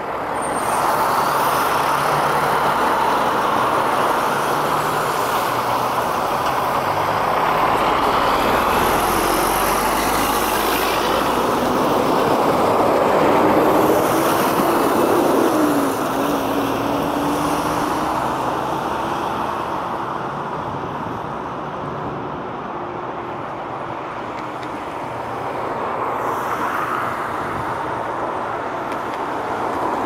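Jet engine noise from a four-engine Boeing 747 airliner passing overhead, a loud steady rush with a faint tone sliding in pitch partway through. The level drops suddenly about halfway, then rises and falls gently.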